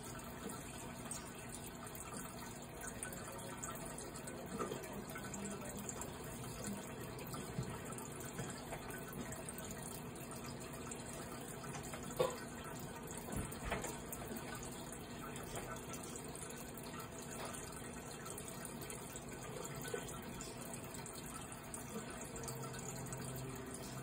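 Microwave oven running: a faint steady hum with fan hiss, with a small click about twelve seconds in.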